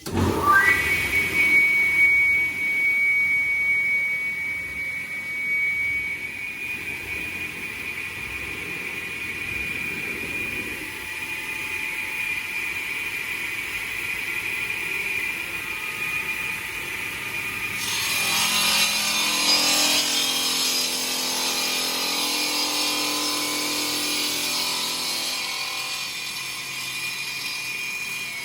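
Stone-cutting saw's circular blade whining up to speed within the first second, then running with a steady high whine. About 18 seconds in, the sound turns harsher and fuller as the blade cuts into the stone, continuing until the whine starts to fall at the very end.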